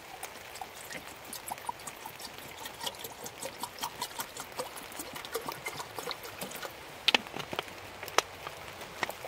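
Water poured from a plastic bottle into a Trangia kettle: a run of small irregular gurgles and splashes, with two sharper clicks near the end.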